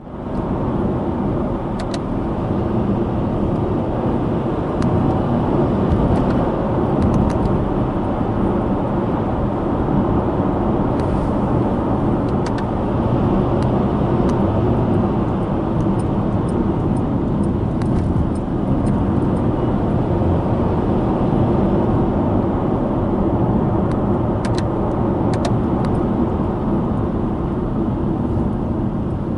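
Subaru Impreza Sport 1.6i-L on the move, heard from the cabin: steady road and tyre rumble with its FB16 flat-four engine running underneath, while driving downhill. A few faint ticks come through now and then.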